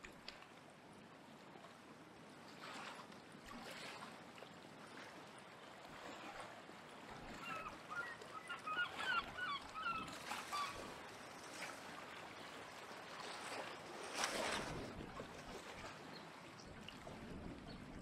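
Small waves washing against the rocks of a seawall, with wind, and a flurry of short waterbird calls in the middle.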